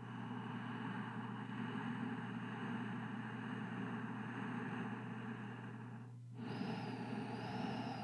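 Slow, soft breathing close to the microphone: one long breath, a brief break about six seconds in, then another, over a low steady hum.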